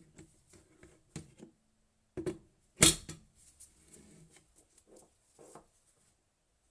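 Handling sounds from an electric kettle: scattered light clicks and knocks, with one sharp click a little under halfway through.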